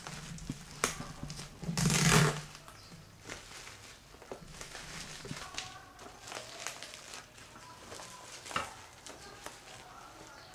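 Plastic packaging and bubble wrap being handled and pulled open: crinkling and rustling with scattered clicks, and one loud rip about two seconds in.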